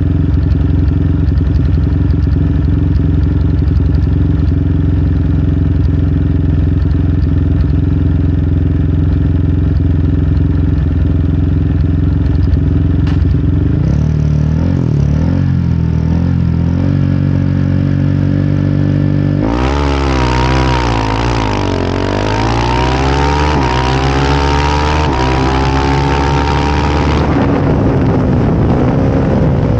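Kramer 690 race bike's single-cylinder engine held at steady revs, then blipped unevenly, then from about twenty seconds in accelerating hard, its pitch climbing in repeated sweeps as it goes up through the gears, before easing off near the end.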